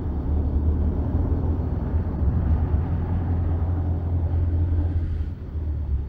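Car climbing a steep hill road: a steady low engine drone under load with tyre and road noise on the wet surface, easing a little about five seconds in.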